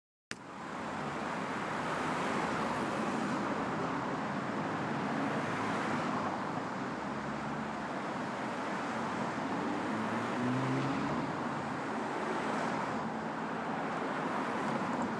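Busy city street ambience: a steady wash of road traffic noise. It fades in after a sharp click just at the start.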